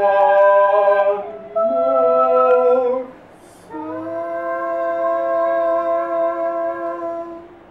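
A girl and a man singing together without words, holding long notes. There are two shorter held notes, the second with a lower voice underneath. After a short break, one steady note is held for nearly four seconds.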